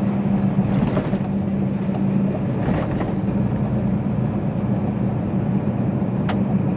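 Semi truck driving, heard from inside the cab: a steady engine hum and road noise.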